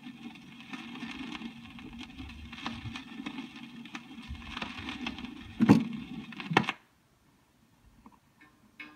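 Stylus riding a spinning vinyl record with no music, giving a steady low hum and hiss with scattered crackle and pops. About two-thirds of the way in come two loud thumps as the tonearm is moved, and the sound cuts off.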